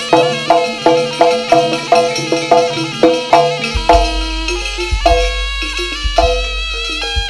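Live Javanese gamelan accompaniment for a barong dance: struck, ringing pitched notes in a fast, even rhythm over hand drums, with a deep low hum coming in about four seconds in.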